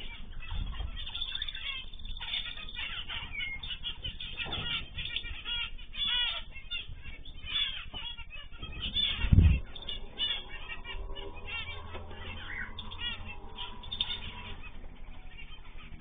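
Zebra finches chirping and calling in a dense stream of short, quick calls. About nine seconds in there is a short, loud, low burst.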